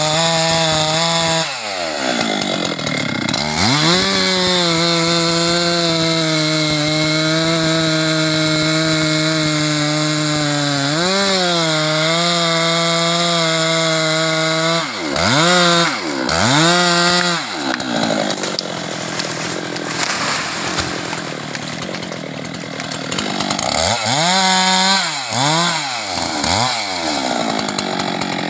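Husqvarna 390 XP two-stroke chainsaw running at high revs while cutting a teak tree. The throttle drops off and comes back up several times, with quick revs near the end.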